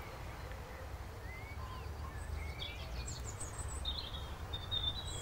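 Birds chirping and singing over a low, steady outdoor rumble. Short rising chirps come in about a second and a half in, and higher chirps and trills follow from about three seconds on.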